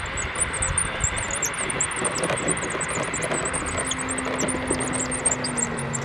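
Large electric RC model airplane (Gee Bee Senior Sportster with a brushless outrunner motor) running under power: a steady propeller whoosh, with a low hum in the second half that slowly sinks in pitch. High, rapid chirping sits over it.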